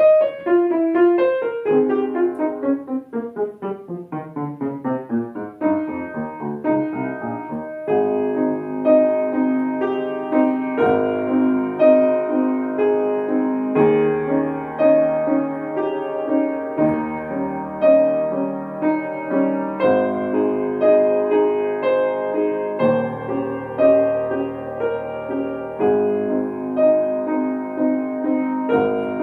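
Solo piano playing: a long falling run of notes, then a steady repeated figure of chords over held bass notes.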